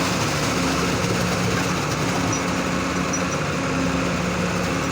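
Diesel engine of a concrete transit mixer truck running steadily at a constant speed while concrete is poured into a pile.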